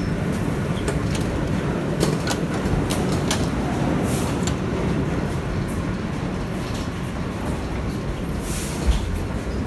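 Steady low rumble inside a New York City subway N train car, with scattered clicks and knocks from passengers moving through the car.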